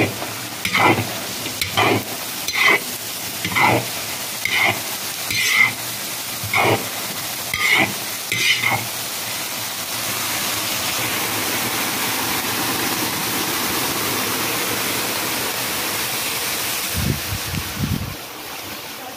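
A metal spatula scrapes and stirs chopped eggplant, bell pepper and onion in hot oil in a cast-iron kazan, about once a second for the first half. After that a steady sizzle of frying carries on, with a brief low rumble near the end.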